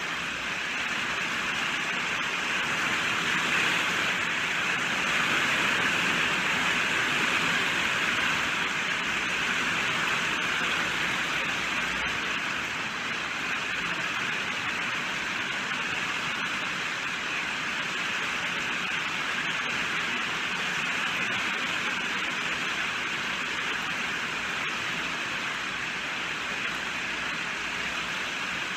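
Steady heavy rain falling, an even hiss of countless drops that swells slightly a few seconds in and then settles.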